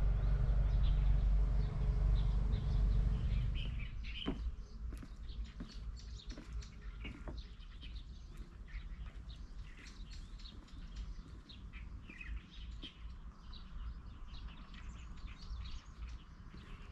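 Small birds chirping and calling, many short high tweets overlapping. A low rumble underlies the first few seconds and fades out about four seconds in.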